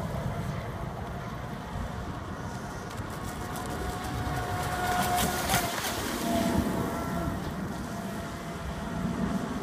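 Radio-controlled speedboat running across the water, its motor a faint, thin, steady whine that wavers briefly about halfway through, over low wind rumble on the microphone.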